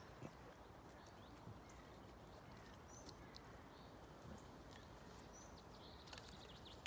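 Near silence: a faint, steady outdoor hiss with a few soft ticks and small high chirps scattered through it.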